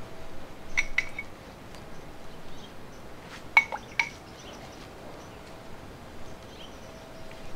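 A few light, glassy clinks of hard objects knocked together: two about a second in and three more between three and a half and four seconds in, each with a short ring, over a faint steady background.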